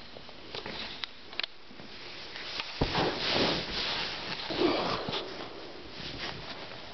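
A few boot footsteps on ceramic tile, then a louder stretch of rustling and handling noise as the person sits down on a sofa, with denim and upholstery rubbing against the recording phone.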